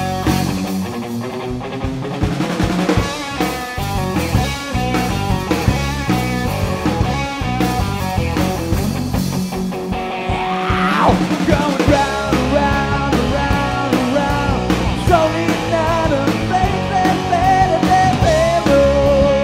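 Blues-rock power trio playing: electric guitar over bass guitar and drum kit. About ten seconds in, a steep falling pitch sweep, followed by held, wavering high notes.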